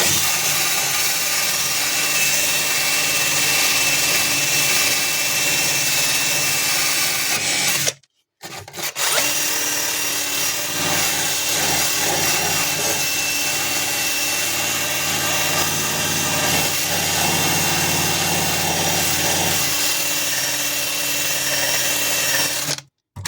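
Handheld power tool running steadily as it strips black dead rust and dried-on rust converter off a steel car floor pan, with a steady high whine. It runs for about eight seconds, stops briefly, then runs again until just before the end.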